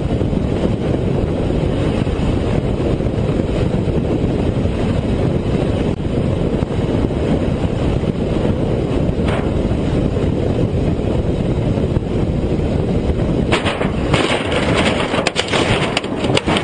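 Steady, loud rush of air and motor noise from a light aircraft flying very low, picked up by a microphone on the outside of the plane. About three-quarters of the way in, a quick series of sharp cracks and crunching impacts breaks in as the aircraft strikes the ground and breaks up.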